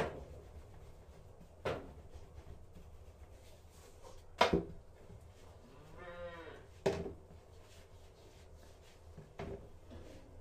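A long wooden rolling pin knocking on the table about every two seconds while a thin sheet of dough is rolled out. An animal calls once, briefly, near the middle.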